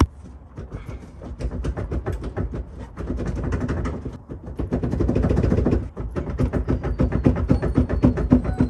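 Rapid rattling and knocking of a Mazda Miata's seat as it is rocked back and forth on its rusted, seized rails to break it free.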